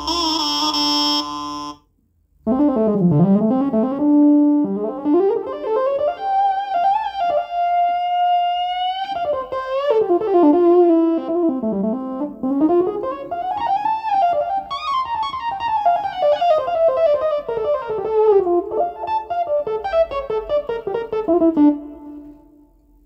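Korg Nautilus keyboard playing a plucked-string voice: a solo melody with quick ornamented runs and pitch-bend slides, starting after a short gap. In the first second and a half, a held chord from the previous wind-like patch rings out and stops.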